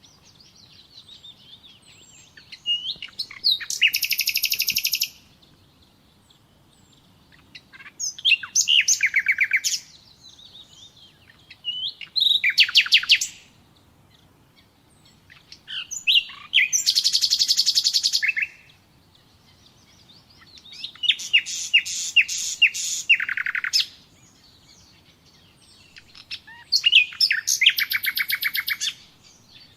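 Common nightingale singing: six loud phrases, each a second or two of fast repeated notes and trills, with pauses between them holding softer, fainter notes.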